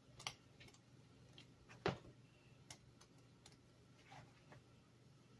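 Near silence with a few faint, scattered clicks and small pops from a pot of boiling broth as pieces of floured biscuit dough are dropped into it, the loudest about two seconds in, over a faint low hum.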